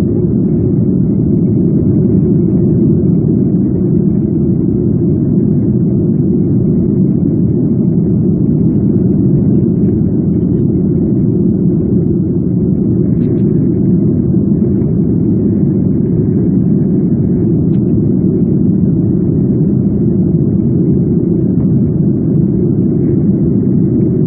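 Steady low rumble of a Boeing 737's jet engines and airflow heard inside the passenger cabin during the climb.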